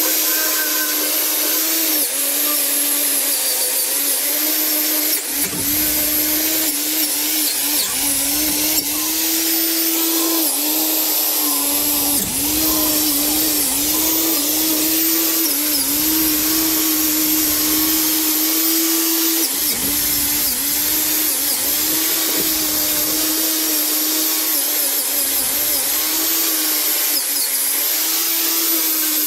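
Electric angle grinder running continuously while it scours rust and grime off a steel frame. Its pitch dips briefly every few seconds as it is pressed harder onto the metal, over a steady hiss of abrasion.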